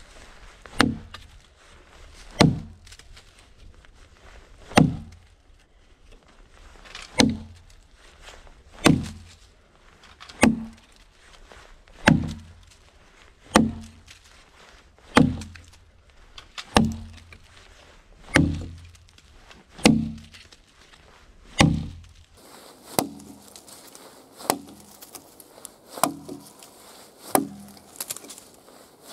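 Axe chopping into a log, one heavy strike with a deep thud about every one and a half seconds. About 22 seconds in, the strikes become lighter and quicker, with less thud, as the axe shaves feathers into the end of the log.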